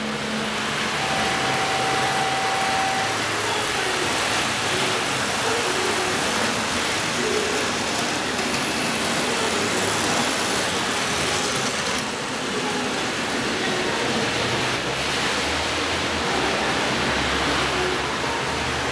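N-gauge model trains running on the layout: a steady whirr and rattle of small motors and wheels on track, with no breaks.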